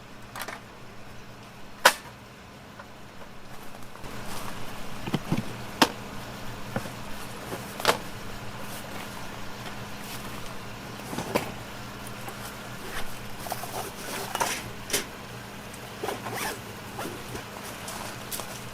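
Camping gear being handled: irregular short clicks, knocks and brief rasping strokes, some of them like a zip being pulled, over a faint steady low hum.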